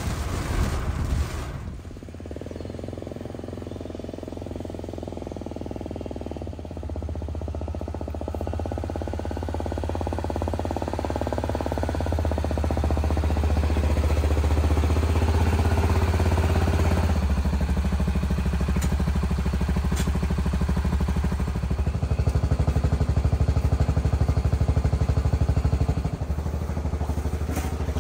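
Utility vehicle (Gator) engine running as it is driven, a steady hum that grows louder in steps through the first half and eases off a little after the middle.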